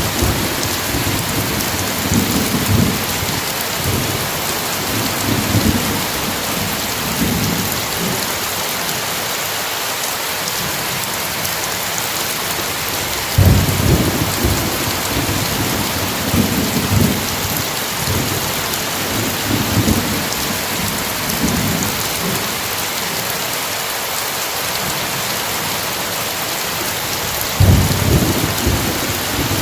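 Steady heavy rain with thunder rumbling low underneath, swelling in rolls, the two strongest starting about halfway through and near the end.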